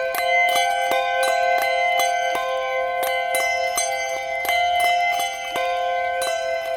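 Handbells being rung in a steady run of strikes, about three a second. Each bell's note rings on and overlaps the next.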